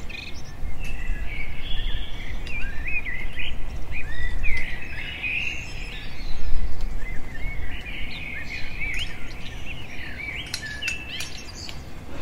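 Songbirds chirping and twittering, a busy stream of short rising and falling calls, over a low steady rumble.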